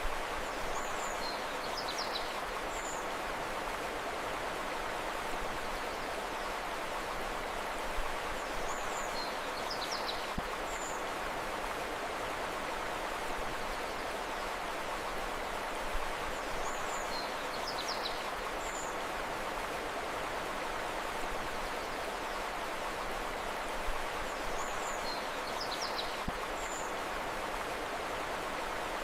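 Steady rushing of river water with a short cluster of high bird chirps repeating every eight seconds, four times.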